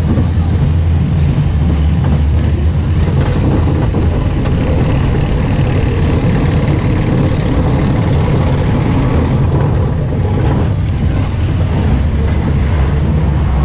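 Steady low rumble of wind on the microphone and the car running along the track, from a moving family roller coaster car.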